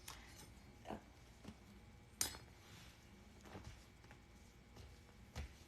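A few scattered light clinks and taps of small hard items being handled, about six in all, the sharpest about two seconds in.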